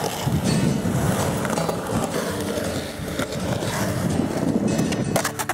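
Skateboard wheels rolling over concrete: a steady, rough rumble, with a few sharp clicks near the end.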